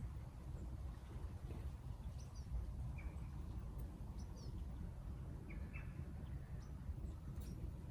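Birds giving short, scattered chirps, a few brief high notes at a time, over a steady low rumble.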